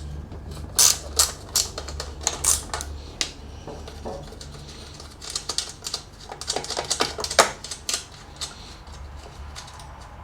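Irregular metallic clicking and tapping of a wrench undoing a 10 mm nut that holds the lawn mower's pull start, over a steady low hum.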